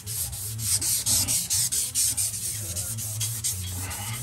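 Emery cloth strip pulled back and forth around a rusty steel axle pivot shaft, a rasping scrub in quick, even strokes, about four to five a second. It is polishing rust off the seized ice house axle pivot before it is greased and refitted. A low steady hum runs underneath.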